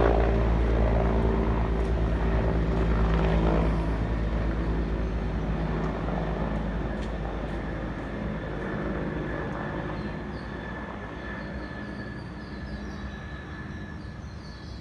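Helicopter's rotor and engine running, loud at first and growing steadily fainter as it descends to land.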